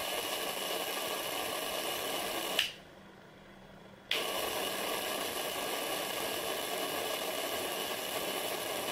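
High-voltage electrical discharge through argon gas in a homemade plastic-tube ion drive: a steady hiss with a high whine. It cuts off suddenly about two and a half seconds in and starts again about a second and a half later.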